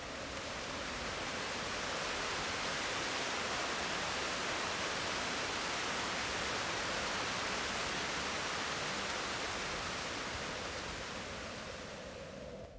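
Waterfall, a steady rushing hiss of falling water. It swells in over the first couple of seconds and fades down near the end.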